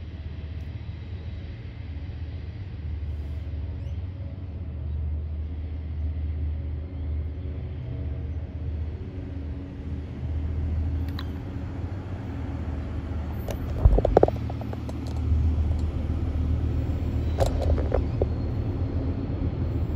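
Low, steady rumble of approaching diesel freight locomotives, slowly growing louder. A sudden low thump comes about two-thirds of the way in.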